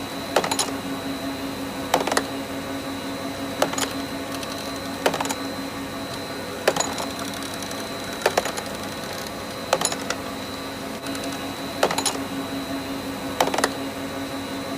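Vertical double-disc surface grinder running with a steady hum and a high whine, punctuated by sharp clicks, mostly in pairs, about every one and a half seconds.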